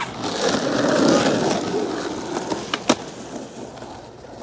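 Skateboard wheels rolling on parking-lot asphalt, the rumble swelling about a second in and then fading, with two sharp clacks near three seconds.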